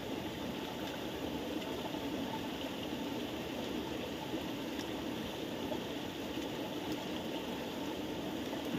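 A steady rush of flowing water.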